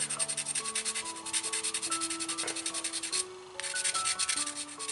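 Small brush scrubbed hard and fast back and forth across a copper coin, about eight strokes a second, with a short pause a little after three seconds in. It is rubbing off black spots to bring up bare copper. Soft background music plays underneath.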